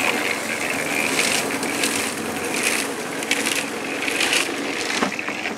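Loose gravel rattling and scraping as a wheelbarrow load of crushed stone is tipped out, in a string of short rushes over a steady high whine.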